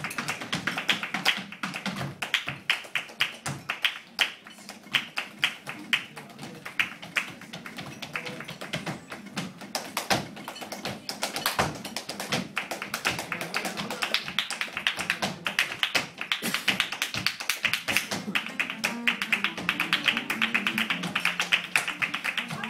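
Flamenco music with rapid percussive footwork taps, many a second, sharp heel-and-toe strikes running continuously over the music.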